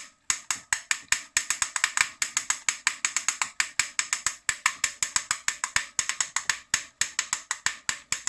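Shuangye e-bike rear hub motor giving a really loud clicking as the wheel is turned by the pedal with the motor off. The clicks come in fast runs with short pauses. It is a new fault whose cause the owner does not know.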